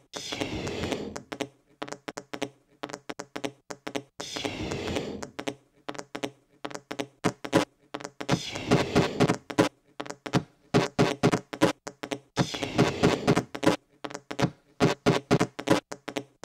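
Glitchy electronic soundtrack: rapid clicks and taps broken by abrupt drop-outs, with short bursts of a pitched, buzzing tone every few seconds.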